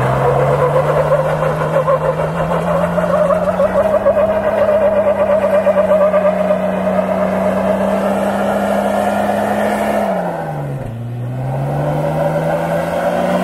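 Jeep Wrangler LJ's Golen 4.6-litre stroker inline-six revving hard and held at high revs while the rear tyres spin on wet pavement in a burnout. About ten seconds in the revs drop sharply, then climb again.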